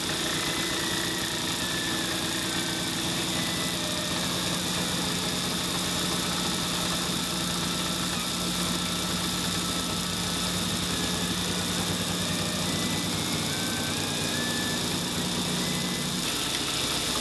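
CNC milling machine cutting brass plate with a small end mill: a steady whir from the spindle and cut with a constant high whine, and short tones that jump from pitch to pitch as the machine's axes move. The sound shifts slightly about a second before the end.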